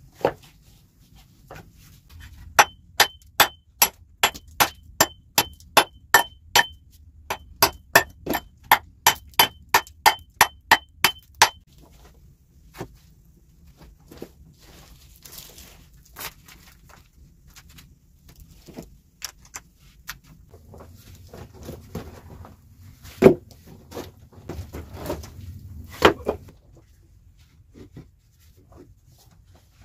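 Rock being struck over and over: sharp knocks with a ringing note, about three a second for some nine seconds with one short break. Then slower scattered clacks and scraping of rocks being set into a dry-stone wall, the two loudest a few seconds before the end.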